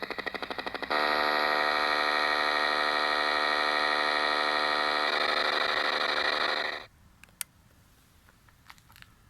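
Electronic signal tones from a municipal disaster-prevention radio system ahead of its evening chime. A rapidly pulsing tone gives way about a second in to a steady, buzzy chord, which shifts slightly after about five seconds and then cuts off suddenly. A few faint clicks follow.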